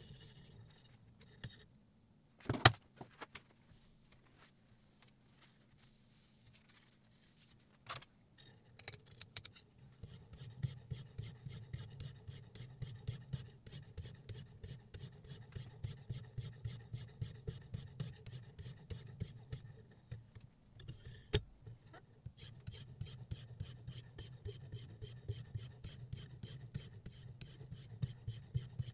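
Abrasive stone in the guided holder of a Sytools Beast knife sharpener rubbing back and forth along a steel kitchen knife's edge, in quick rasping strokes several times a second from about a third of the way in, sped up threefold. A loud knock near the start and another about two-thirds through.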